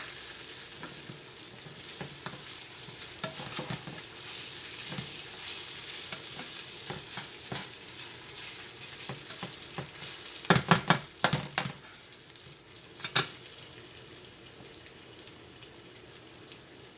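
Rice and onions sizzling as they toast dry in a nonstick skillet, stirred with a wooden spatula. A quick cluster of sharp knocks and scrapes of the spatula against the pan comes about ten to eleven seconds in, and one more about two seconds later.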